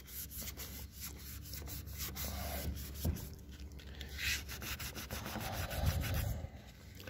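Paper towel rubbing and scrubbing over the painted door of a 1978 Chevy C10 pickup, wiping petroleum jelly and the overspray on it off the paint: a rapid, irregular run of short scuffing strokes.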